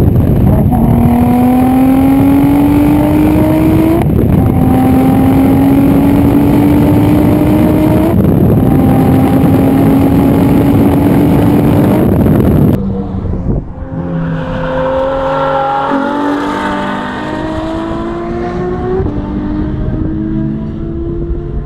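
Audi S4 B5's twin-turbo V6 exhaust, heard close up at the rear of the car under hard acceleration: the engine pitch climbs steadily through each gear, with an upshift about every four seconds. About thirteen seconds in it cuts to a different car's engine, quieter, its pitch stepping up and down.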